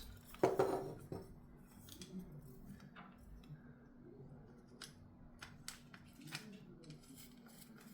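Faint, scattered clicks of small metal rain-chain parts being handled as the nuts are put back on.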